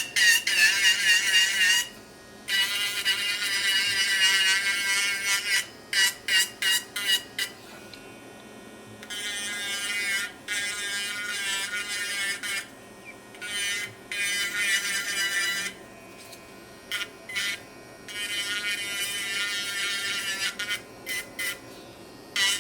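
Battery-powered electric nail drill (e-file) whining as its bit is worked over a nail to file off gel. It runs in short passes and longer stretches with brief quiet gaps, the pitch wavering as the bit presses on the nail.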